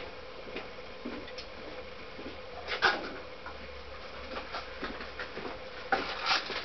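Small handling noises at a workbench: scattered light clicks and taps, one sharper knock about three seconds in, and a run of rustling and clicking near the end, over a faint steady hum.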